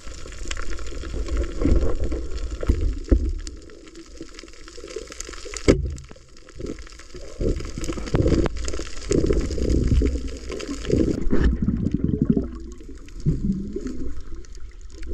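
Muffled underwater water noise, gurgling and swelling unevenly, as heard by a camera held underwater. There is a sharp knock about six seconds in.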